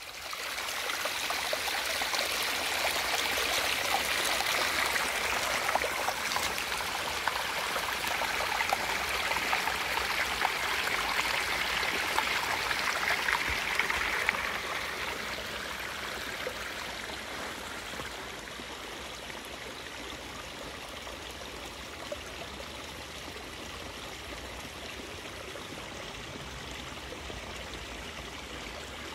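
Running stream water rushing steadily, louder for the first half and then dropping to a lower, steady level about halfway through.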